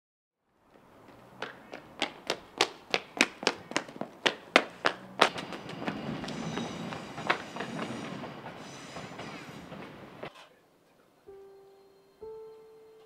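A ball bouncing on stone paving, a quick even run of sharp thuds about three a second, followed by a softer steady noise. A few soft piano notes come in near the end.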